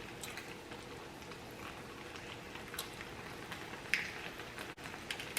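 Close-miked chewing of saucy barbecue chicken: faint wet mouth clicks and smacks every second or so, over a low steady hum.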